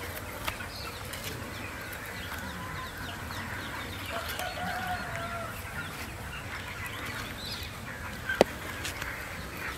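Hens clucking in the background over faint outdoor ambience, with one sharp click about eight seconds in.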